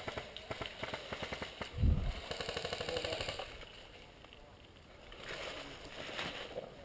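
Airsoft guns firing rapid full-auto bursts, a fast even string of sharp shots, with a loud low thump about two seconds in.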